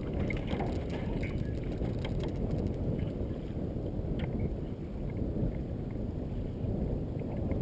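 Wind buffeting the microphone in a steady low rumble, with water lapping at a small metal boat's hull and a few light splashes as a muskie is held in the water at the side.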